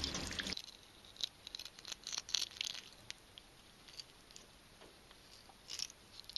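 Tap water splashing into a stainless-steel sink, cut off abruptly under a second in. Then faint, sharp snips and clicks of kitchen scissors cutting a small freshwater fish open along its backbone.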